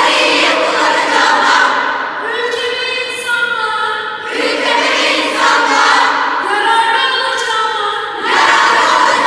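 Crowd singing together in chorus, with long held notes and louder swells about every four seconds.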